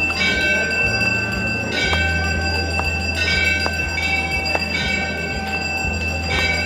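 Temple bell struck again and again, a fresh strike about every second and a half, each ringing on into the next, over a steady low hum.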